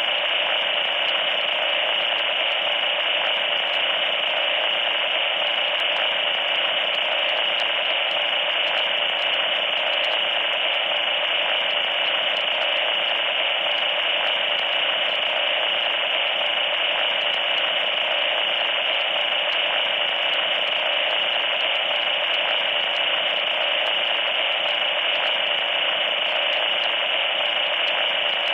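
Loud, steady static hiss, band-limited like radio static, with nothing above about 4 kHz or below about 500 Hz and no change throughout.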